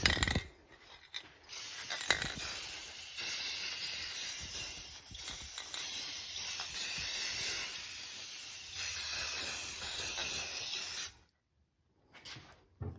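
Paint spraying: a steady hiss in long passes, with a short break about five seconds in, stopping abruptly near the end.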